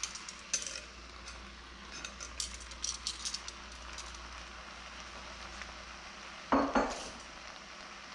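Beef and vegetables sizzling softly in an enameled cast-iron pot while pieces of seared beef are set back in with metal tongs, the tongs clicking against the pot a number of times in the first few seconds. Past the middle come two heavier knocks as something is set down.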